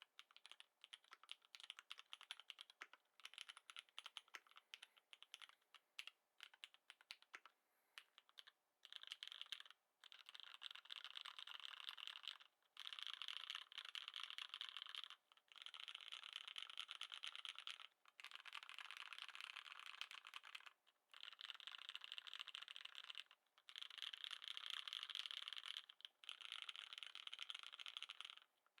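Custom mechanical keyboard being typed on, its lubed Cherry MX Black linear switches clacking. Separate keystrokes come first, then from about nine seconds in fast continuous typing in runs of two to three seconds with short pauses between.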